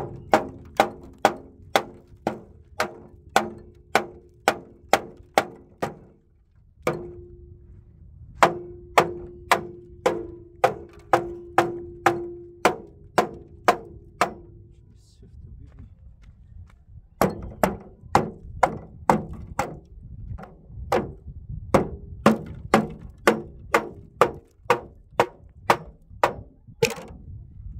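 Steady hammer blows, a little over two a second, in three runs with short pauses, each strike leaving a ringing note.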